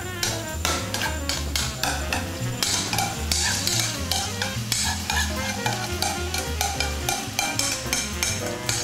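Marinated sliced pork being scraped from a dish into a hot oiled frying pan and sizzling as it hits the oil, with many quick scrapes and clinks of the utensil. Background music with a bass line runs underneath.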